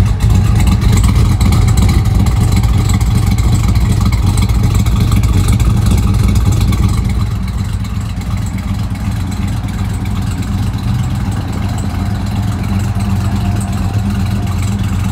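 Exhaust of a 1940 Ford pickup's LS3 V8 idling steadily with a deep rumble. It is louder at first and softer after about seven seconds.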